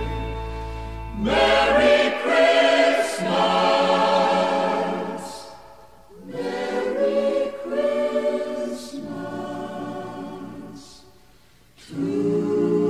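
Choir singing slow Christmas music in long, held chords. The phrases swell and fade, dropping low about six seconds in and again shortly before the end.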